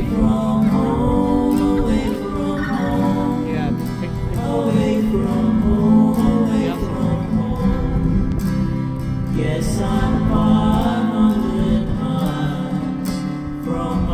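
Background music: an acoustic guitar song with a singing voice.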